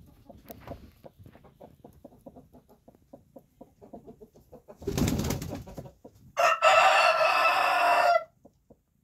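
Chicken clucking softly in a steady run of short low clucks, several a second. About five seconds in comes a brief burst of rustling noise, then a rooster crows once, loud, for nearly two seconds.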